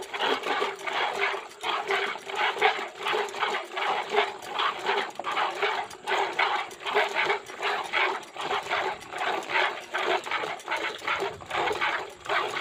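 Milk squirting by hand into a steel bucket, alternating teat strokes making an even rhythm of short hissing squirts, about three a second.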